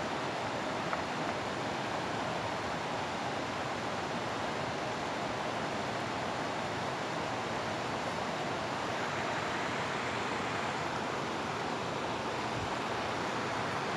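Fast, choppy river water rushing around waders: a steady, even rush of moving water with no change in level.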